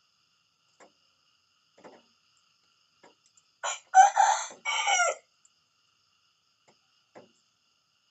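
Rooster crowing once, about halfway through: a short first note and then the longer drawn-out cock-a-doodle-doo, lasting about a second and a half. Faint short sounds come before and after it.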